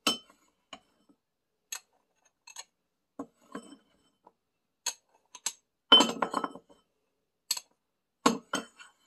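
A spoon clinking and tapping against a spice jar as the powder mixture is spooned in. It makes scattered sharp clicks, with a quick flurry of taps about six seconds in.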